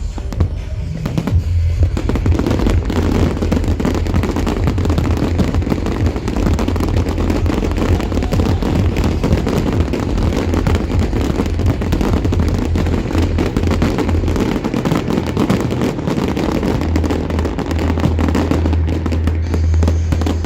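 Fireworks crackling and popping in rapid, dense volleys over loud dance music with heavy bass. The crackling thins out near the end.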